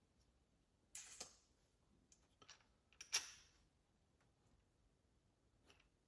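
Small screws and nuts clicking and rattling against 3D-printed plastic parts as they are handled: a short clatter about a second in, a few light clicks, then a louder clatter about three seconds in.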